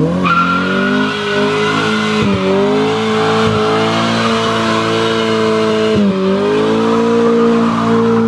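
A car spinning its tyres in a hard burnout: tyres squealing while the engine is held at high revs, its pitch dipping briefly about two seconds in and again about six seconds in. Both driven wheels spin, leaving two strips of rubber, which the onlookers take as a possible sign of a limited-slip differential.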